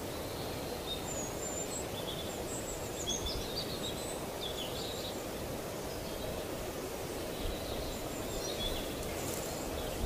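Wild birds giving short, high chirping calls scattered through, busiest about three to five seconds in, over a steady outdoor background noise.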